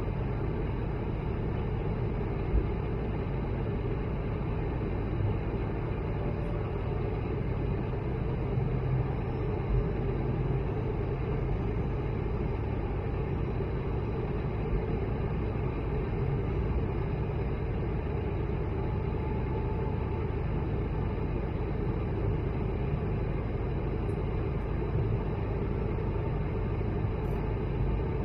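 Steady cabin drone of an Airbus A220-100 in its departure climb: the Pratt & Whitney PW1500G geared turbofan engines and the rush of air past the fuselage, heard inside the cabin as an even, deep rumble.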